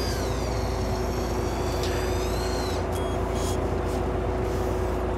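Fishing boat's engine running steadily: a low drone with a constant hum, over an even hiss.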